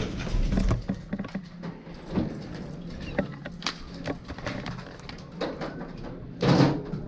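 Scattered clicks, knocks and rustles of gear being handled, with a louder rustling burst near the end.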